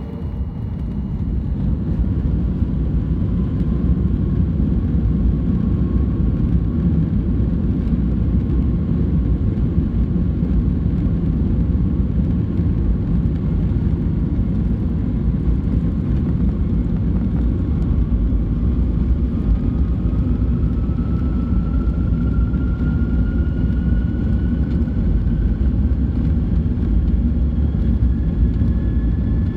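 Boeing 737 MAX 8's CFM LEAP-1B jet engines during takeoff: a loud, steady deep rumble with a faint whine slowly rising in pitch.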